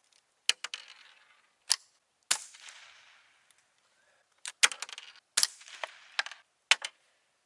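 Remington 597 .22 LR semi-automatic rifle firing CCI Quiet 22 subsonic rounds: a string of sharp cracks and metallic clicks in clusters, the loudest in the second half. The low-powered rounds are not cycling the action, leaving stovepipe failures to eject.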